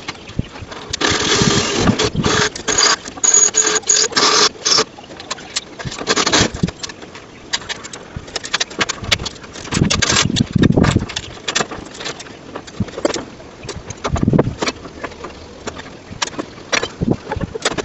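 A handheld power tool running in short bursts on a galvanised steel gate frame, with frequent sharp metal knocks and clanks. The longest run of the motor comes about a second in and lasts a few seconds.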